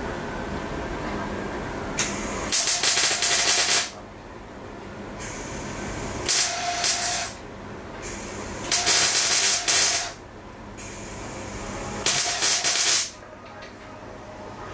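Arc welding: four short welds, each a crackling hiss lasting about a second, with a low steady hum between them.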